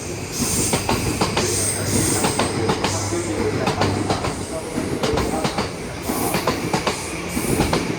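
Yokosuka Line E235-1000 series electric train pulling out of the station, its wheels clacking over rail joints and points in a quick, uneven run of clicks, with a steady low hum through the first four seconds.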